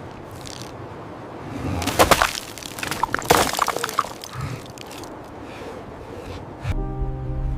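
A run of sharp cracking and crunching noises, loudest about two seconds and three seconds in, over a rough noisy background; near the end music with held tones comes in.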